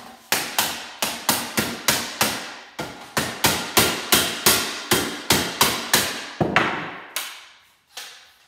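A hammer repeatedly striking the plastic handle housing of a battery grass trimmer clamped in a bench vise, about three blows a second for some six seconds, then a few slower blows near the end. The housing is being knocked loose now that its screws are out.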